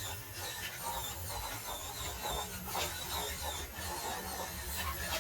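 The small electric motor of a mini RC crawler whining in short bursts as the throttle is worked, with scattered clicks and scrapes from the truck working at an obstacle.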